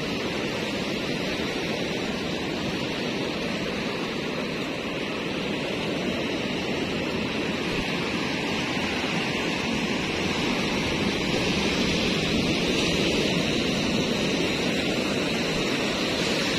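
Surf breaking offshore and washing up a sandy beach: a steady rush of noise that grows a little louder in the second half.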